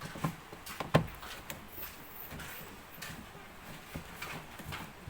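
A few sharp knocks and clicks of handling, the loudest about a second in, with lighter clicks later, from work on a twin-tub washing machine.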